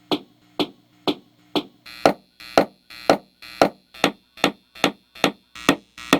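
Repeated sharp pops through a guitar amplifier from a Fender American Elite Stratocaster's wiring, about two a second, each dying away quickly, over a faint steady amp hum.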